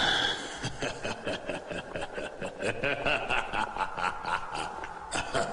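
A man laughing in quick, even bursts, about four or five a second.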